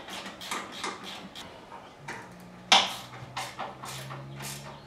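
Hand tools clicking and tapping on metal as the 12 mm bolts of a motorcycle exhaust collector are tightened: a run of light irregular clicks, with one sharper clink near the middle.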